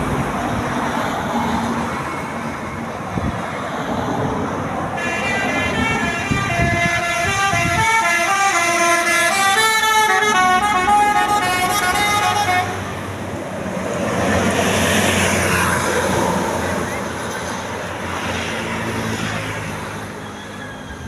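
Tour bus's Basuri 'telolet' musical horn playing a quick stepping tune of several notes sounding together, starting about five seconds in and stopping some seven seconds later, over traffic noise and voices.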